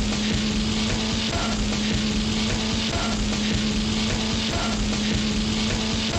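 Loud, steady crackling hiss with a low hum underneath. The hum cuts out and restarts about every one and a half seconds, as a short looped sample does.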